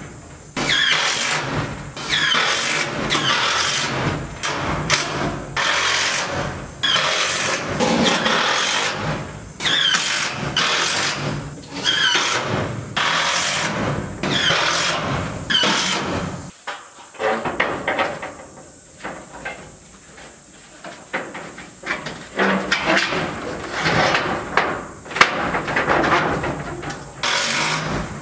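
A power drill driving screws into sheet-metal siding, one screw after another in short runs of about a second each, the motor's pitch rising as it spins up. A quieter stretch comes a little past the middle before the driving starts again.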